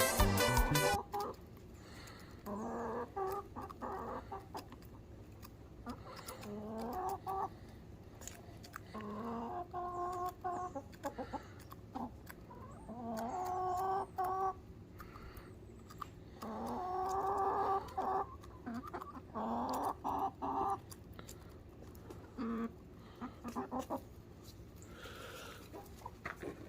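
Chickens clucking, a series of drawn-out calls recurring every few seconds, with scattered sharp clicks between them.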